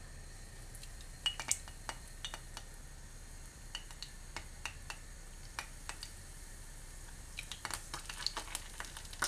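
Breaded cutlets being laid into a frying pan of hot sunflower oil: faint crackling and scattered pops of the oil, growing more frequent near the end.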